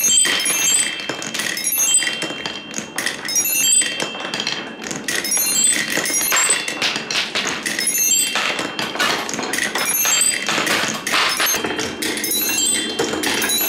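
Glass marbles rolling down a wooden wave-slope marble-run track, clattering and knocking against the wooden grooves and clinking against each other. The clicks come thick and fast without a break, many with a short ringing high tone.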